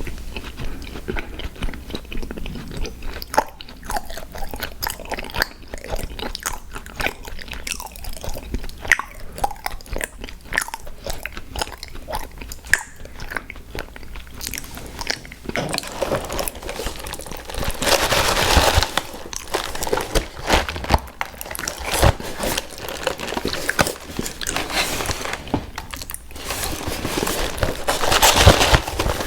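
Close-miked eating sounds: biting, crunching and chewing of sweets, made up of many small sharp clicks. There are louder, denser stretches a little past halfway and again near the end.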